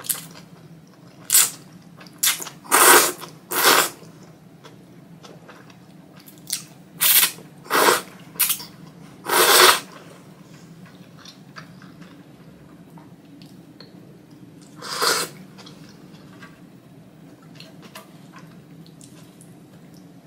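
Thick ramen noodles being slurped in a string of short, loud, hissing slurps, about nine in the first ten seconds and one more around fifteen seconds in, with soft chewing between.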